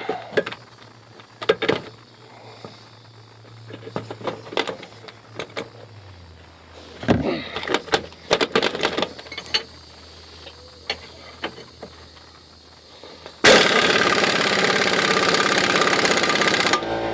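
Impact wrench hammering on a rusted axle bolt to break the nut loose, starting suddenly near the end after a run of metal clanks and taps as the socket is fitted.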